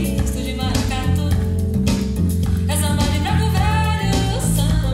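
A recorded pop song with a lead singer, guitar and a strong bass line, played back through L-Acoustics SYVA column loudspeakers with SYVA LOW bass extensions, heard in the room.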